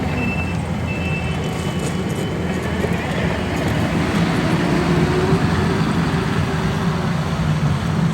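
Heavy earthmoving equipment's diesel engine running steadily under load, its note rising slightly through the middle. A backup alarm beeps twice, about once every 0.7 s, in the first second.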